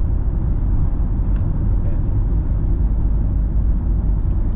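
Steady low rumble of a moving vehicle, engine and tyres on the road, heard from inside the cab while cruising.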